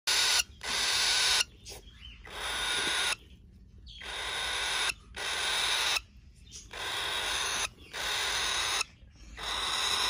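Four-week-old cockatiel chicks giving raspy, hiss-like calls, about eight in a row, each about a second long, swelling and then cutting off sharply, with short pauses between them.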